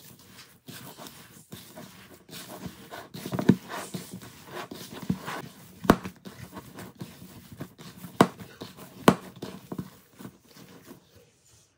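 A hand kneading raw minced beef with corn flour in a bowl: irregular wet squelching and squishing, with about four sharp slaps as the hand presses into the meat.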